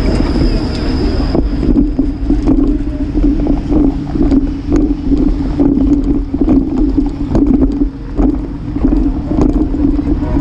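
A streetcar's steady high-pitched wheel squeal that stops about a second and a half in. After it, wind buffets the microphone, and a bicycle rattles and knocks as it rides over the streetcar tracks.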